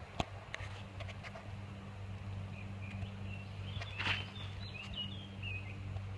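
Breath blown into a dry grass tinder bundle holding a bow-drill ember, with a brief puff about four seconds in and a few crackles of dry grass handled early on. A bird chirps repeatedly through the middle.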